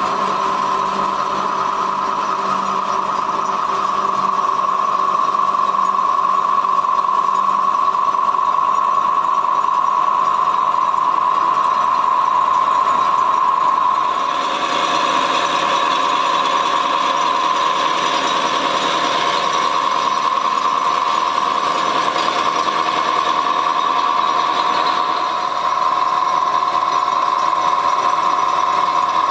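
Plastic rope factory machinery running steadily with a constant high whine. About halfway a brighter, noisier layer joins it, and it drops away a few seconds before the end.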